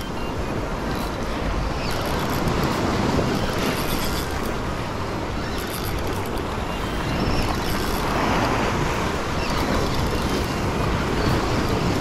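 Ocean swell washing and breaking against the rocks, with wind buffeting the microphone.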